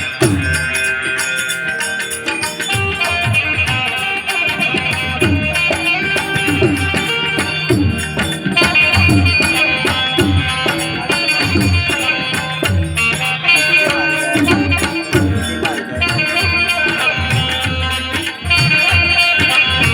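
Instrumental interlude of Indian devotional folk music: a steady beat of drum strokes with a shaker-like rattle under a sustained melody instrument, with no singing.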